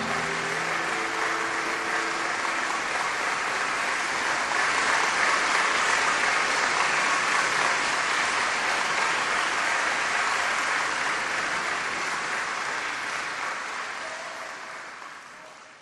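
Audience applauding as the last notes of a guitar-led song die away. The clapping holds steady, then fades out near the end.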